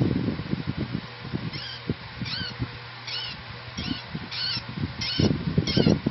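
African lovebird giving short, shrill chirps, about seven of them at a steady pace of roughly one every 0.7 s, starting about a second and a half in. Low knocks and rustling run underneath and are loudest near the end.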